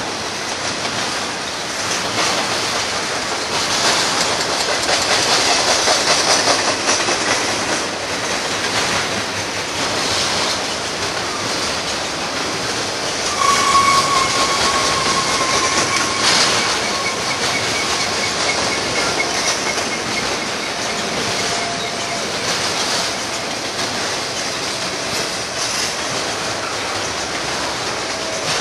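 Double-stack intermodal container train's well cars rolling past close by, a steady rumble and clatter of steel wheels on rail. A thin wheel squeal rings out about halfway through, and a fainter, lower one comes near the end.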